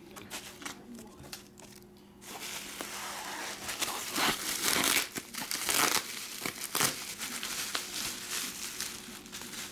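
Plastic bubble wrap being unrolled and pulled open by hand, rustling with many sharp crackles. It starts about two seconds in after a few faint clicks and is loudest in the middle.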